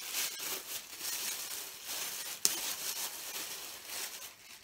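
Rustling and crinkling of a handbag and its snap-in insert being handled and pulled out, with a single sharp click about two and a half seconds in.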